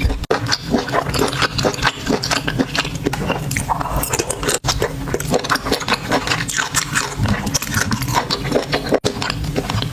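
Close-miked chewing and biting of seafood, a continuous run of small wet clicks and crackles from the mouth, broken by three very short dropouts.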